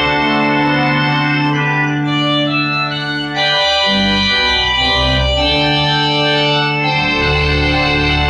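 Pipe organ playing held chords over a moving bass line, the bass dropping out briefly about three seconds in. The instrument has just had its first full overhaul, its bellows and reeds rebuilt.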